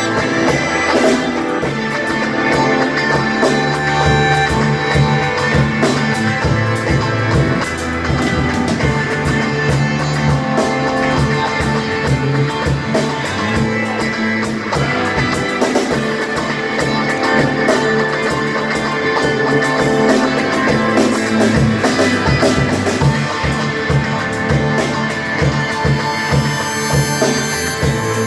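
Live rock band playing an instrumental passage, with electric guitar and drum kit.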